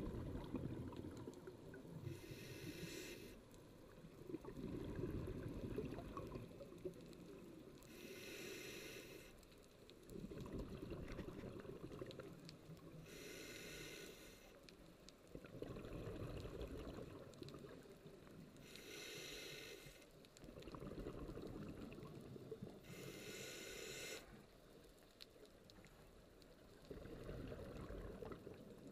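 Scuba diver breathing through a regulator underwater: a short hissing inhalation about every five seconds, six in all, each followed by a longer bubbling rumble of exhaled air.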